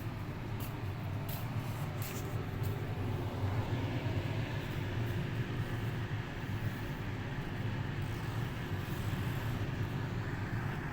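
Dehumidifier running: a steady low hum with an even hiss over it, and a few faint clicks in the first three seconds.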